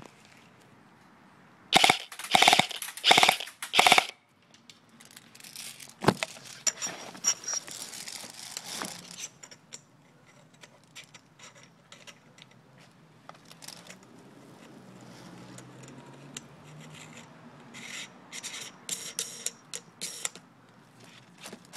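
Classic Army M15A4 airsoft electric rifle, with a high-speed, high-torque motor and reinforced gearbox, firing several loud short full-auto bursts about two seconds in. Clicks and rattles of handling follow, then a run of quieter short bursts near the end.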